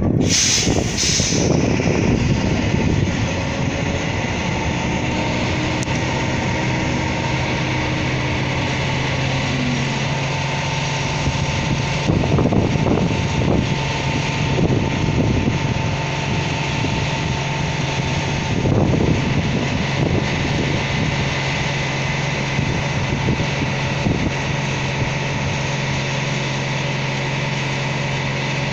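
Truck engine running steadily to drive the hydraulics of a truck-mounted forestry loading crane, with a steady hum throughout. The sound swells a few times, about twelve to fifteen seconds in and again a few seconds later, as the crane works.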